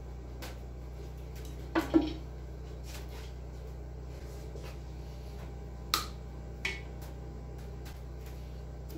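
Heavy metal engine parts clunking and clinking as the main bearing girdle is lifted off the block and the crankshaft taken out. There are two sharp knocks about two seconds in and two lighter ones around six seconds, over a steady low hum.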